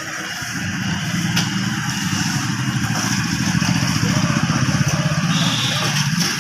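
A small engine running close by with a fast, even throb, getting louder about halfway through.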